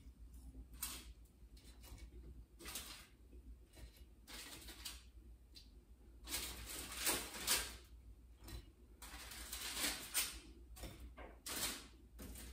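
Handling noises: intermittent rustling and short light knocks of things being moved about, in several bursts, the longest and loudest about six to eight seconds in and again around ten seconds in.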